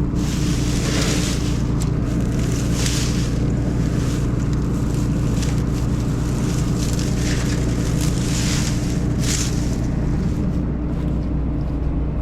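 Combine harvesting soybeans, heard from inside its cab: a steady low machine drone with a hiss that swells and fades several times.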